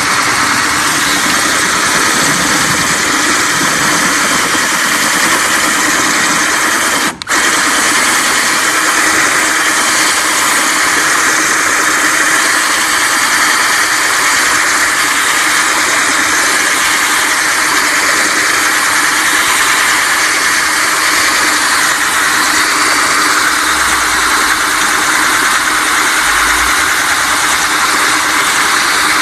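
Power drill running steadily as its bit grinds through the thick glass of a bottle, cooled by water held in a putty dam. The drill cuts out for a split second about seven seconds in, then carries on.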